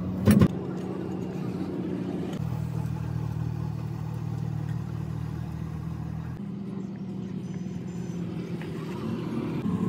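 An engine running steadily at idle, a low hum whose tone shifts abruptly twice. A single sharp knock comes just after the start.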